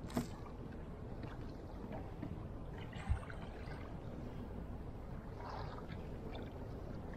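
Choppy sea water slapping and splashing against a kayak hull over a steady low rush, with a couple of knocks, the louder one about three seconds in.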